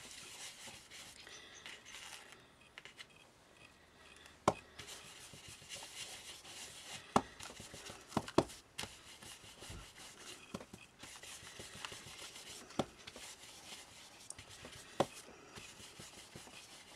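Ink blending brush rubbing and scrubbing over a paper card, a faint steady rustle, with about eight sharp taps as the brush knocks on the card and the ink pad.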